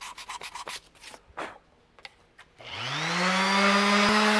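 A quick run of rattling clicks, then a little over halfway in a small electric power tool motor spins up with a rising whine and runs steadily.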